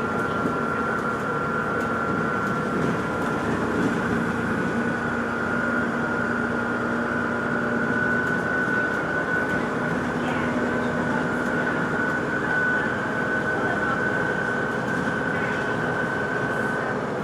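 Vehicle running, heard from inside, with a steady high-pitched whine over its rumble that edges slightly upward in pitch and a lower hum that comes and goes: the odd noise this vehicle is making.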